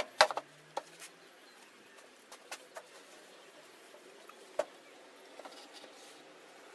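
Scattered light knocks and clicks of laminated pine pieces being handled and fitted together: two sharp ones at the very start, then a few softer taps spread over the following seconds.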